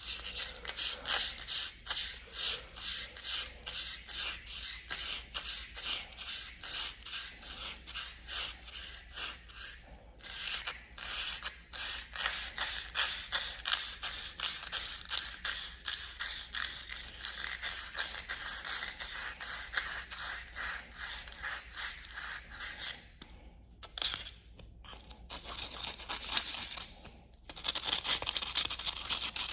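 Aerosol spray paint can in use: a hissing spray broken into rapid, even pulses, pausing briefly about a third of the way in and thinning out for a few seconds near the end.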